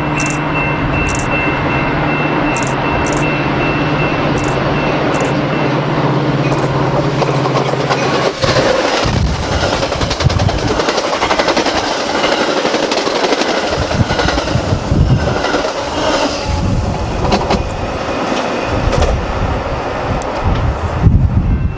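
Metra commuter train of bilevel cars with an F40PHM-2 diesel locomotive passing the platform at speed: after a steady approach, a loud rush of wheel and rail noise sets in about eight seconds in and runs until just before the end as the cars go by.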